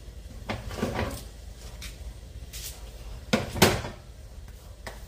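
Two clunks of kitchen things being handled on the counter, a softer one near the start and a louder, sharper one about three and a half seconds in.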